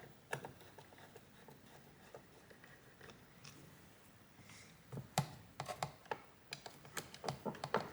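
Scattered light clicks and taps of hard plastic hoverboard parts being handled, mostly in the second half.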